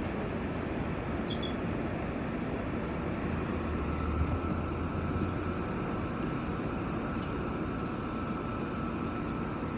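Steady rumble and hiss of an R46 subway car on the elevated line, with a thin steady whine coming in about a third of the way through.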